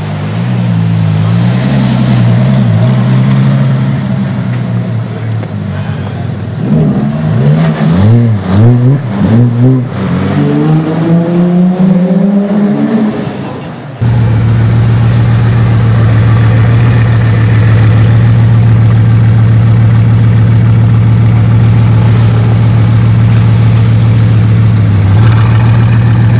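Ferrari LaFerrari's V12 idling, then revved in a string of quick throttle blips. After a sudden cut, a Bugatti Veyron Grand Sport Vitesse's quad-turbo W16 idles steadily, heard close to its exhaust.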